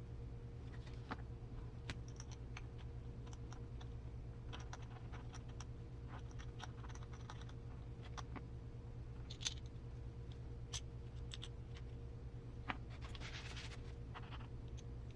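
Scattered light clicks and taps of small plastic and metal parts being handled and fitted during assembly of an RC crawler's gearbox, with a short scrape about 13 seconds in, over a steady low hum.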